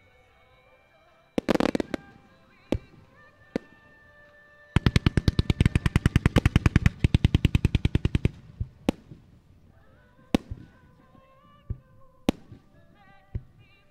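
Fireworks firing over recorded show music: a quick cluster of crackling bangs about a second and a half in, then a rapid string of sharp reports, roughly nine a second, lasting about three and a half seconds, followed by single bangs every second or two.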